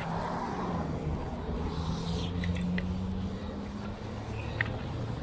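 Road traffic on a busy bridge: a vehicle engine running with a steady low drone. A few short, high clicks come about halfway through and again near the end.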